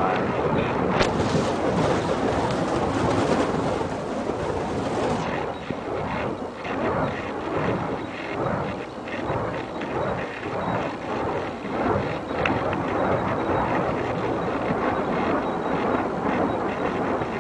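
Burning fire poi whooshing as they are swung, in rhythmic passes about once or twice a second, over a steady rush of wind noise on the microphone.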